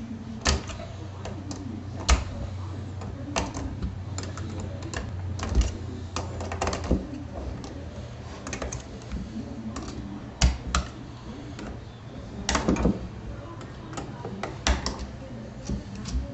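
Small wrench clicking and clinking on the steel nuts and bolts of an HHO dry cell as the nuts are snugged down onto the plates: irregular sharp metal clicks, with a low steady hum underneath.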